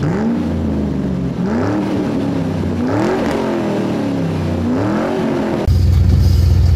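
A vehicle engine revved up and down again and again, its pitch rising and falling every second or so. Near the end it gives way abruptly to a steady, louder low hum.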